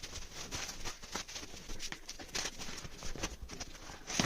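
Cardboard product box being handled: irregular taps, knocks and rustles.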